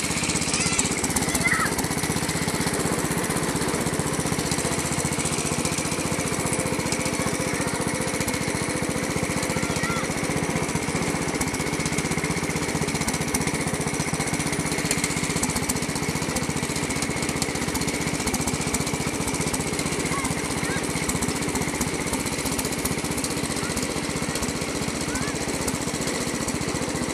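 Small engine of a Massey riding lawn tractor running steadily while the tractor is driven, with a rapid, even firing beat.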